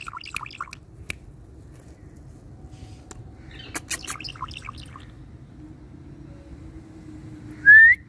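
Indian ringneck parakeet chirping and chattering softly, with a few sharp clicks. Near the end comes a short, loud rising whistle.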